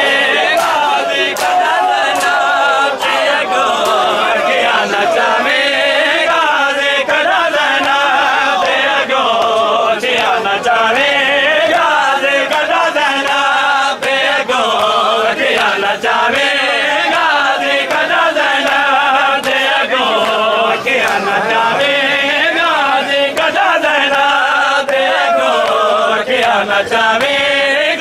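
A crowd of male mourners chanting a noha (mourning lament) in chorus. The sharp slaps of chest-beating matam sound in a run near the start and again near the end.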